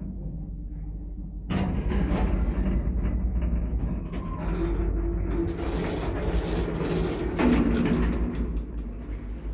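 1980s Končar traction lift levelling at a floor, the car shaking as it levels, with a mechanical rumble and rattle that suddenly gets louder about one and a half seconds in. Its automatic sliding doors then run open with a short motor whine.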